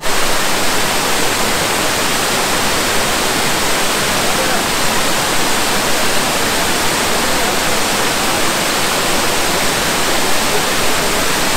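Elephant Falls, a three-tiered waterfall swollen with monsoon water, pouring in a loud, steady rush with no let-up.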